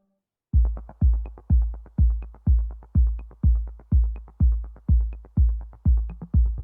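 Background electronic music: a steady pounding kick-drum beat of about two beats a second, starting about half a second in after a moment of silence.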